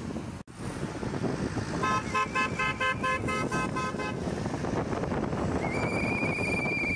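Car horns honking in a motorcade: a rapid string of about ten short beeps, about four or five a second, then a single long, higher-pitched horn blast near the end, over steady wind and road noise.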